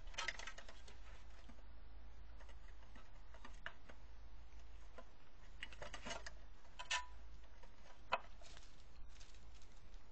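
A marten's claws clicking and scratching on an aluminium step ladder and tree bark as it climbs: scattered light ticks and scrapes, with one sharper click about eight seconds in.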